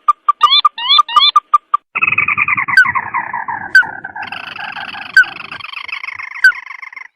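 Lure-call recording of a red-eyed crake (tikusan): a run of short, evenly spaced notes, some rising, then from about two seconds in a long rattling trill that falls in pitch. A second long trill joins it partway through, with sharp single notes cutting in about once a second.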